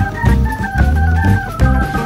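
Background music: an organ-like keyboard melody of held notes over a pulsing bass line.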